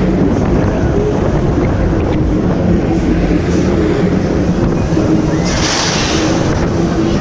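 Fairground ride machinery running with a steady, loud droning hum and rumble, with a burst of hissing about five and a half seconds in.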